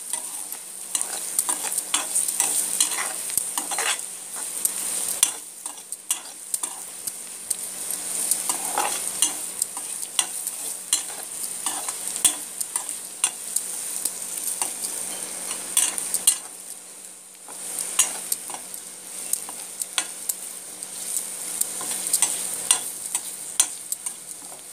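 Carrot slices and peanuts sizzling in oil in a metal kadai, stirred with a metal spatula that scrapes and taps against the pan over and over. The sizzle and stirring ease off briefly twice.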